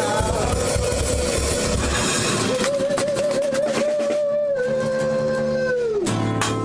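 A rock band's song coming to its end on acoustic guitars and a drum kit, with a long held note wavering in vibrato that drops away about six seconds in, then a final crash of guitars and cymbals.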